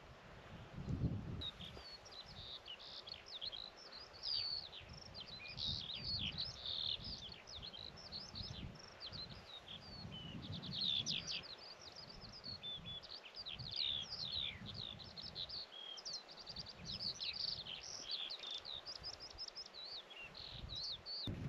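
A songbird singing a long, unbroken stream of quick high chirps and trills, starting about a second in. Wind buffets the microphone in low gusts underneath.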